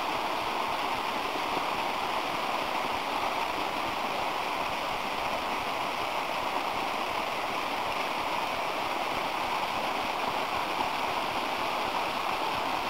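Water gushing steadily down a rocky slope in a shallow, fast rush over stones and gravel: spring water escaping from the sierra, its rush a sign of how much is still being lost.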